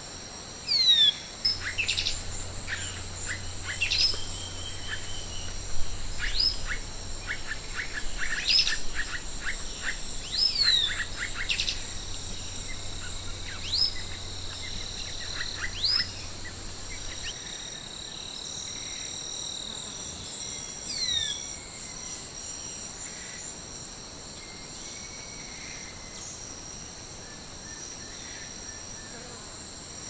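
Wire-tailed manakin calling: short, sharp downslurred whistles every second or two, mixed with clusters of quick clicking notes, thinning out to a few faint calls about halfway through. Behind them runs a steady high-pitched drone of insects.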